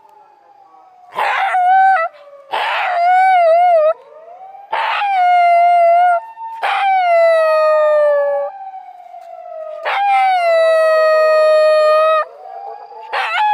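Shiba Inu howling at a police car siren: five long howls, each starting with a rough burst and sliding down in pitch, the second one wavering, with a sixth beginning near the end. The siren wails faintly underneath.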